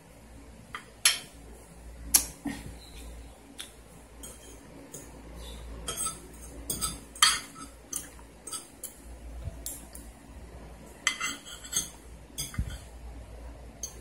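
Spoon and fork clinking and scraping against plates at irregular intervals, with bunches of sharper clinks about six seconds in and again near the end.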